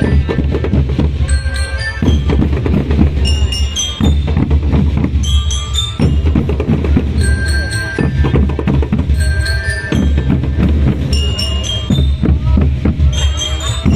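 Indonesian marching drum band playing: bass drums and snare and tenor drums beating a dense, steady rhythm under short phrases of ringing bell-lyre notes that recur about every two seconds.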